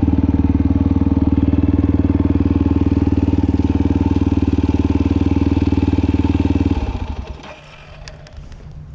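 ATK 350cc Enduro dirt bike engine running steadily at low revs, with an even pulse of firing strokes. It shuts off about seven seconds in, leaving only a few faint clicks.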